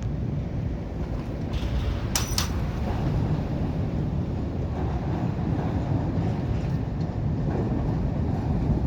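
A vehicle's steady low rumble, with a short sharp high-pitched sound about two seconds in.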